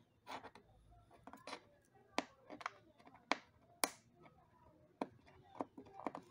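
Irregular sharp clicks and short scrapes of old adhesive tape being picked and scraped off an iMac A1418's frame, with a few louder snaps in the middle.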